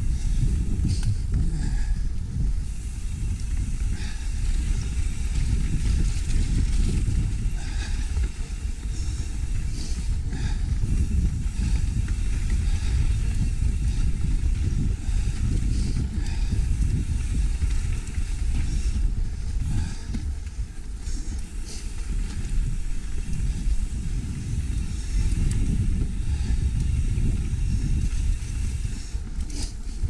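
Mountain bike descending a dirt singletrack: heavy low wind rumble on the handlebar-mounted microphone, with tyre noise and scattered rattles and clicks from the bike over rough ground.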